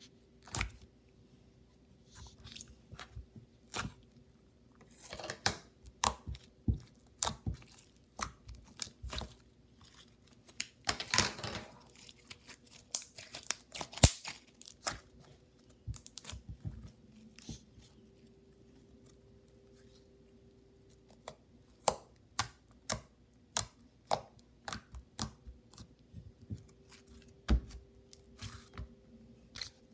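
Slime being pressed, squeezed and pulled by hand, crackling with scattered sharp pops and clicks, busiest about eleven to fifteen seconds in.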